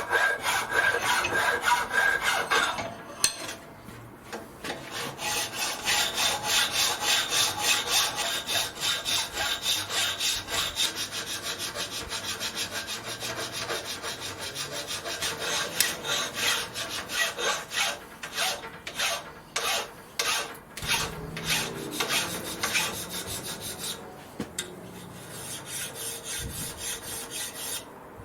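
A hand file rasping back and forth across a metal clamp plate in quick, even strokes, about two to three a second, while the plate is shaped by hand. The strokes thin out and grow quieter near the end.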